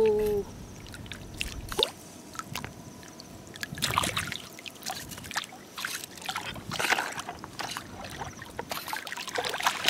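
Shallow seawater sloshing and splashing as rubber boots wade and hands reach into the water, with irregular small splashes and a few stronger ones.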